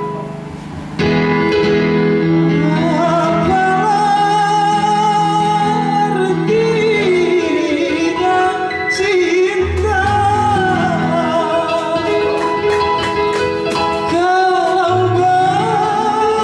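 A singer's voice with wide vibrato over an accompaniment of held chords and a bass line; the full music comes in about a second in.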